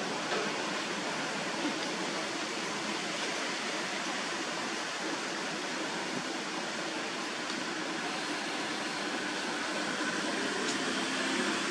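Steady, even hiss of outdoor background noise, with a few faint ticks and no animal calls.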